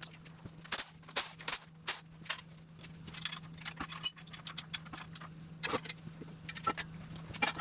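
Hand tools clinking and clicking against metal parts in short, irregular bursts as work on the tractor's transmission begins, over a steady low hum.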